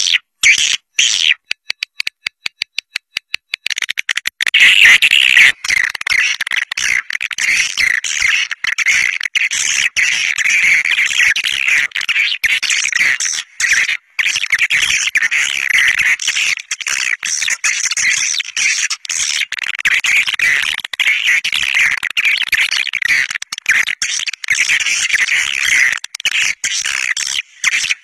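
Swiftlet caller recording, the lure track played at swiftlet nesting houses: a fast, even run of clicks for the first few seconds, then dense, unbroken high-pitched twittering chirps from many swiftlets.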